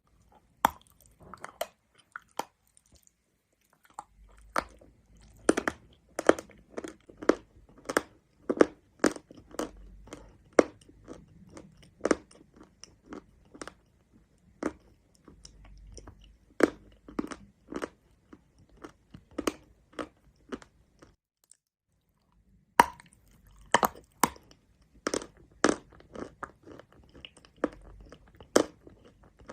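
A person biting and chewing hard chalk close to the microphone: sharp crunches about two a second, in runs broken by short pauses, the longest of them about two-thirds of the way in.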